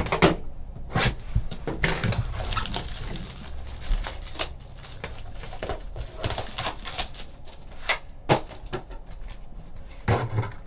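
Clear plastic shrink wrap being torn and crinkled off a cardboard trading-card box, with irregular sharp crackles and taps as the box is handled and opened.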